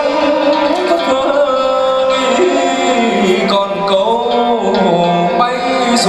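Traditional Vietnamese music for a water puppet show: a voice singing over drums and melodic instruments.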